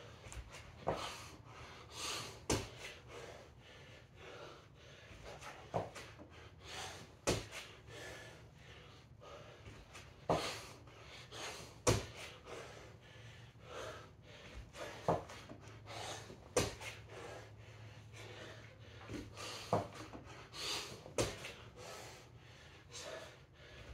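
A man breathing hard from exertion, with forceful exhales and gasps about every second, and a few sharp thuds on a rubber floor mat.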